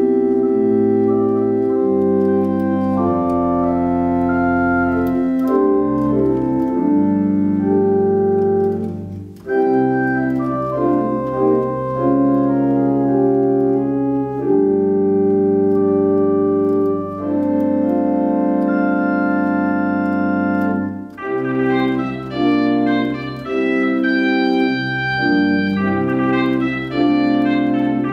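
Organ music: slow, sustained chords held over a deep pedal bass, changing every second or two, with short breaks between phrases about nine and twenty-one seconds in.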